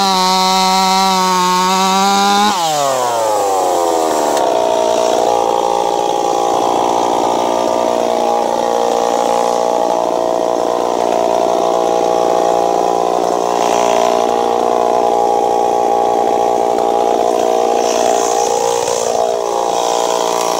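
Ported Stihl 026 two-stroke chainsaw running at full throttle, its pitch falling sharply about two and a half seconds in as the chain takes the load of cutting into a silver maple log. It then holds a steady, lower, loaded pitch while it cuts.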